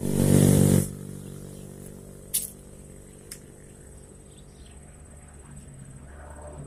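Spinning rod and reel worked while casting a worm-baited line: a loud rush of handling noise in the first second, then two sharp clicks from the reel. A steady low engine hum runs underneath.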